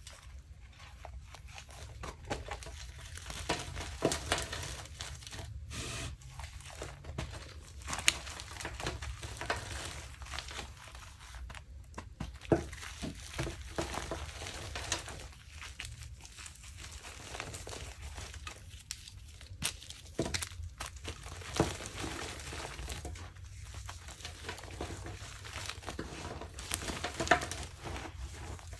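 Hands crushing and crumbling a reformed gym chalk block. Dry chalk crunches and crackles steadily into powder, with a few sharper cracks as chunks snap.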